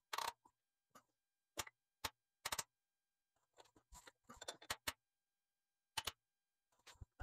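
Brass mallet tapping a steel workpiece down in a milling-machine vise to seat it: sharp metallic taps, some single and spaced about half a second apart, with a quick run of several taps about four seconds in.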